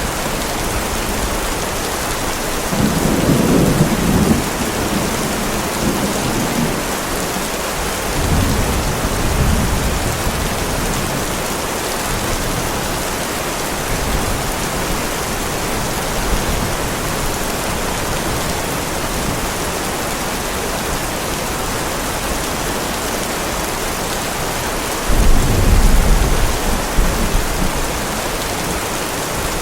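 Heavy rain falling steadily, with thunder rumbling: a roll about three seconds in, fainter rumbles around eight to ten seconds, and a louder clap breaking in suddenly near the end that rumbles on for about three seconds.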